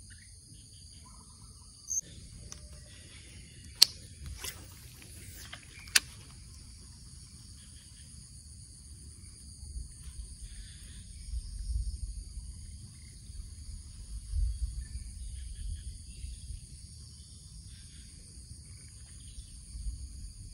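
Steady high-pitched drone of an insect chorus. A few sharp clicks come about four and six seconds in, and low rumbles in the second half.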